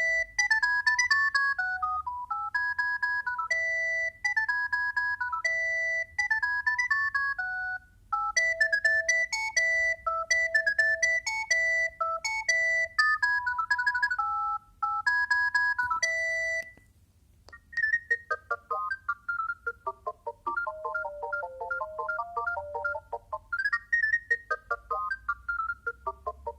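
Alcatel One Touch 320 mobile phone playing its built-in ringtones: beeping melodies, one note at a time. One tune stops about 17 seconds in, and after a short pause a different, lower tune begins.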